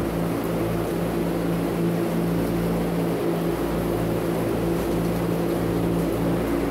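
Steady machine drone with several low tones held unchanged throughout.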